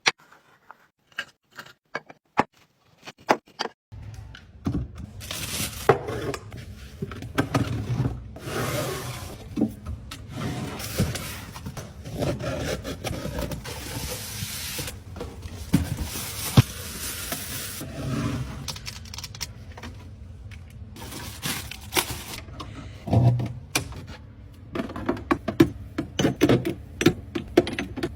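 Skincare bottles, jars and packaging handled and set down: sharp clicks and taps at first, then continuous rubbing, scraping and rustling with frequent clicks over a low hum.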